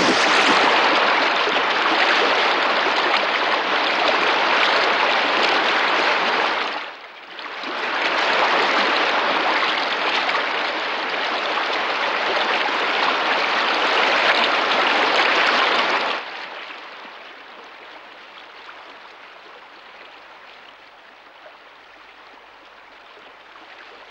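Cartoon sound effect of water gushing down a wooden flume: a steady rushing surge that breaks off briefly about seven seconds in, picks up again, and drops to a much fainter wash about sixteen seconds in.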